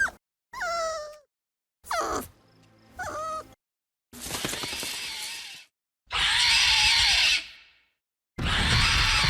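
Creature sound effects: three short whimpering yelps of a puppy, each falling in pitch. From about four seconds in come three loud, rasping squawks of a giant dodo, each a little over a second long.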